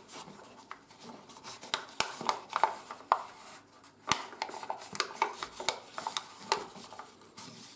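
A sheet of 80 g/m² office paper being creased and tucked by hand: irregular crackles and rustles of folding paper.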